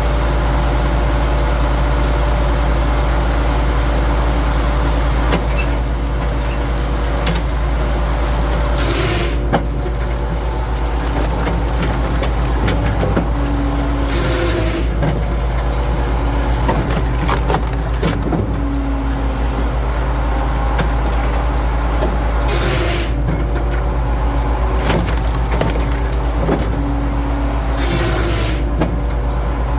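Firewood processor's engine running steadily under load, with four short hissing bursts spaced about five to eight seconds apart.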